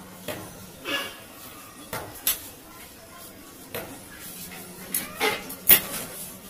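Aluminium sliding-door frame and glass panel being handled and fitted: a string of irregular, sharp metallic clinks and knocks, about eight of them, the loudest near the end.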